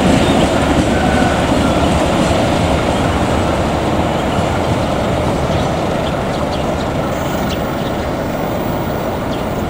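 Passenger coaches of a departing local train rolling away over the rails: a steady rumble of wheels on track that slowly fades as the train recedes.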